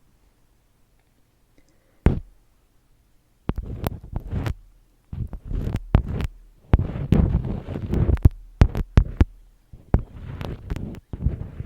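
Close-miked ASMR handling sounds: one sharp click about two seconds in, then irregular runs of clicks and taps over crinkly, crackling rustle.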